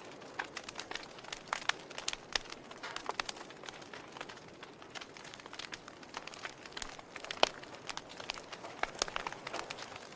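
Fire crackling: a soft steady hiss with irregular sharp pops, one louder pop about seven and a half seconds in.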